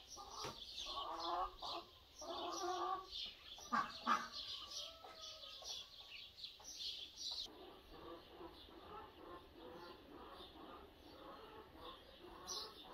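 Many small birds chirping constantly, with hens clucking in short runs about a second and two and a half seconds in. A short, sharp louder sound about four seconds in.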